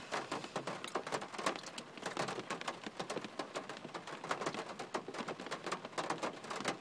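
Rain pattering on the roof of a car, heard from inside the cabin as a dense, irregular stream of small ticks.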